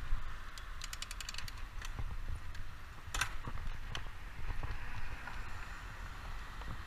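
Riding noise from a bike-mounted camera on a moving mountain bike: wind on the microphone and road rumble, with a short run of rapid clicks about a second in and a single sharper click a little after three seconds.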